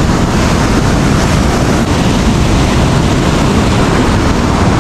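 Wind rumbling on the microphone over the steady rush of ocean surf breaking on the beach.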